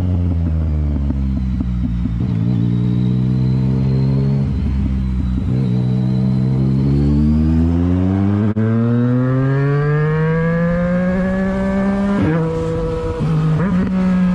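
Motorcycle engine heard from the rider's seat: its pitch drops at first, then climbs steadily for several seconds as the bike accelerates hard, with a quick shift and change in pitch near the end.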